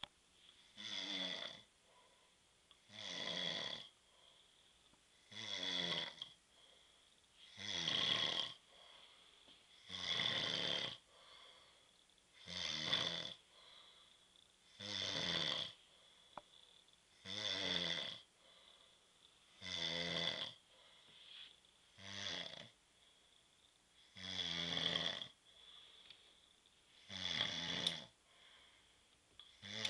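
A sleeping man snoring, one snore about every two and a half seconds, each lasting about a second, with quiet gaps between.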